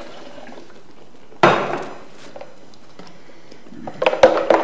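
Handling of a blender jar over a stainless steel pan: one sharp knock about a second and a half in, then a quick run of knocks and clatter near the end as the jar is tipped over the pan and its liquid begins to pour in.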